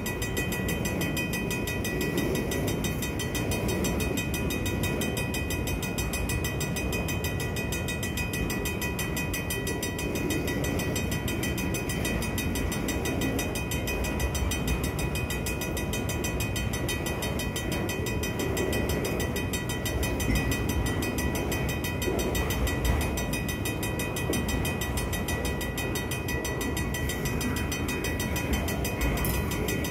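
Vintage mechanical railroad-crossing bell ringing fast and steadily over the low rumble of freight cars rolling slowly through the crossing.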